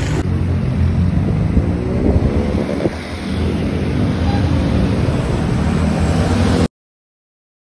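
Steady vehicle noise with a low rumble, mixed with wind on the microphone, cutting off suddenly near the end.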